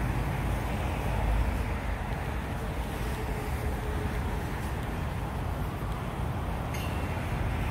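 Steady road traffic rumble on a city street: an even, low noise of passing cars, with a light click near the end.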